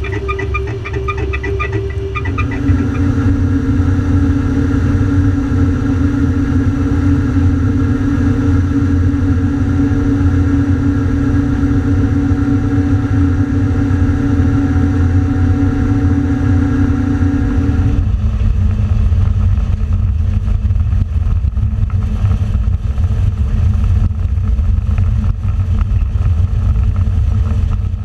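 Harvest machinery running loud and steady: a combine harvester and tractor engine drone with a steady hum. The hum shifts about two seconds in while grain is unloaded from the combine's spout into an overloading wagon, then changes to a deep low rumble about eighteen seconds in.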